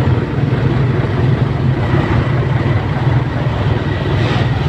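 Vehicle engine running steadily: a low, even drone mixed with road and traffic noise.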